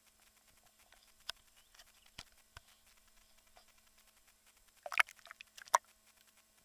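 Small splashes and sharp taps of water against a waterproof action-camera housing held at the surface, a few single taps first, then a louder quick cluster about five seconds in as the camera dips under.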